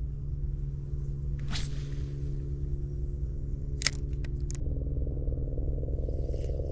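A steady low mechanical hum, like a motor or machinery running, whose upper tones shift about two-thirds of the way through, with a couple of faint sharp clicks.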